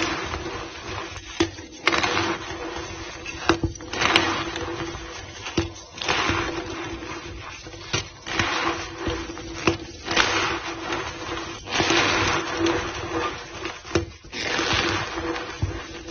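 Powdery white gym chalk being squeezed and crumbled by hand, pressed back into a block: a run of crunching, squeaking squashes every second or two, with sharp little cracks between them. A faint steady hum lies underneath.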